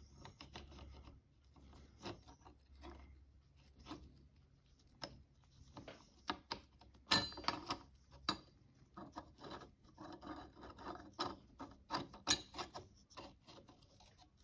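Hand work on a Honda ATC90 clutch: metal clutch parts clicking, knocking and rubbing as the assembly is worked down into place. Two louder sharp clacks stand out, one about halfway through and one later on.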